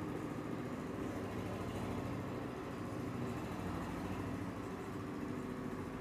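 A steady low mechanical hum, engine-like, with faint strokes of a marker writing on a whiteboard.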